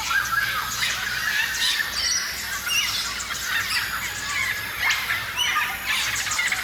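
Many birds chirping and calling at once, a dense chorus of short overlapping chirps and whistles.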